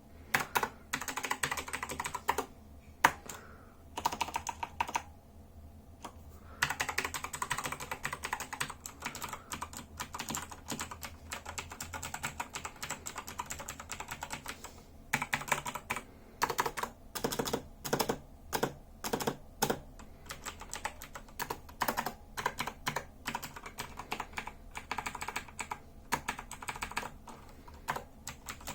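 Typing on a Razer BlackWidow Chroma V2 mechanical keyboard with Razer Green tactile, clicky switches: fast, irregular runs of key clicks. There is a near pause of a few seconds early on, and slower, separate keystrokes around the middle.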